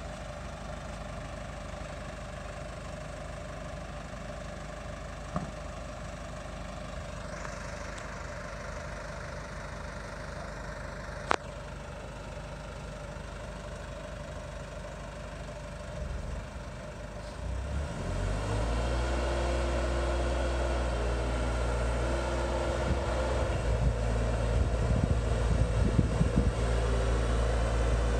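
Boatyard travel lift's engine idling steadily, then speeding up about eighteen seconds in and running louder as the lift drives forward with a catamaran slung beneath it. Two short sharp clicks come earlier, over the idle.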